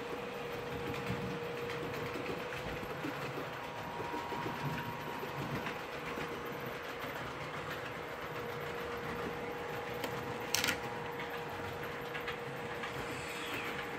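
OO gauge model trains running on the layout's track: a steady rolling rattle of small wheels over rail with a steady motor hum. A brief sharp hiss comes about ten and a half seconds in.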